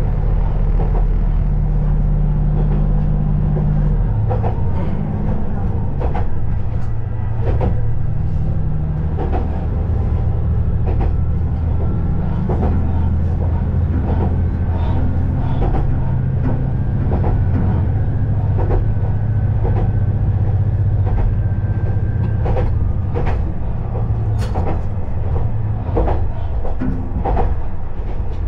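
KiHa 20-series diesel railcar under way, heard from inside the car: its DMH17 diesel engine drones steadily, with the wheels clicking over rail joints. The engine note shifts about four seconds in.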